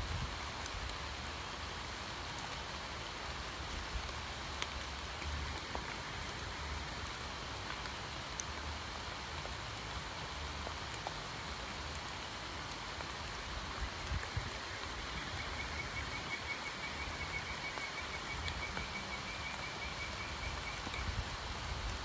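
Steady rain falling on a pond's water surface, a dense patter with scattered single drops. A faint high trill runs for about six seconds in the second half.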